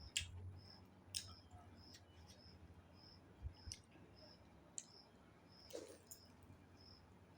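Quiet eating: a few sharp mouth clicks and a soft chewing crunch, spaced out, while a faint high chirp repeats evenly a little under twice a second in the background.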